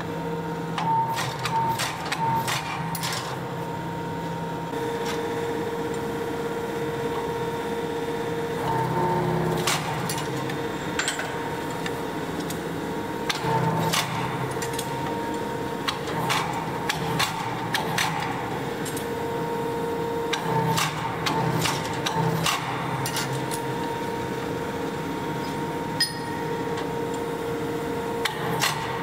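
Hydraulic forging press running with a steady motor hum whose tone changes several times as the ram works the steel, over irregular metallic clanks and clinks of tongs and the hot steel billet against the dies.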